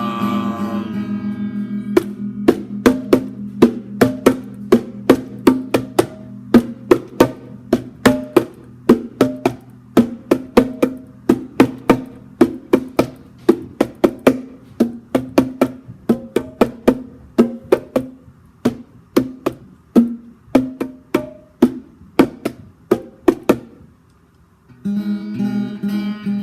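Acoustic guitar played solo: a ringing strummed chord, then sharp, choppy strums at about three a second, which stop briefly near the end before full ringing chords resume.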